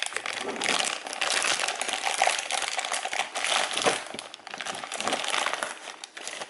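Clear plastic bag crinkling and rustling as it is pulled open and worked off a boxed battery charger during unwrapping.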